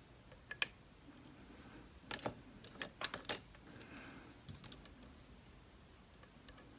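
Lock-picking tools clicking and scraping against the pins of a DOM RS8 high-security cylinder: a few sharp metal clicks, bunched together in the middle.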